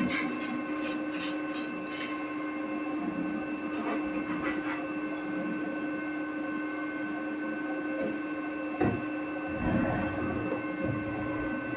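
Steady machinery hum made of several fixed tones, with rapid clicking for the first two seconds and a few low thumps about nine and ten seconds in.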